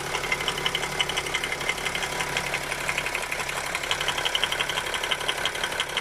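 BMW M57 straight-six diesel idling with the oil filler cap off, with a fast, even knocking coming out of the open filler neck. The knock is the floating drive coupling of the camshaft-driven vacuum pump working under the pump's load: normal running, not a fault.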